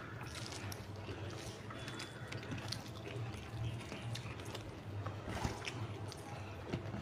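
Fingers squishing and mixing rice with curry on a banana leaf, and mouths chewing, heard as many small wet clicks and smacks. A steady low hum runs underneath.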